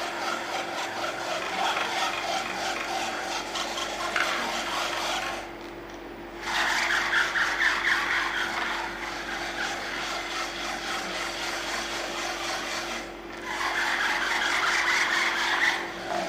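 Batter being stirred and pushed through a fine mesh sieve: a rhythmic rasping scrape against the mesh, stopping briefly twice.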